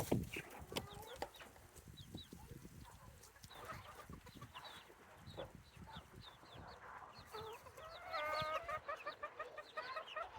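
Hens clucking and giving short high chirps, with scattered low knocks throughout. Near the end comes a fast run of repeated clucks, the loudest part.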